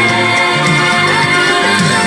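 Instrumental passage of a pop song, with a bass line, sustained keyboard-like notes and light percussion, and no singing.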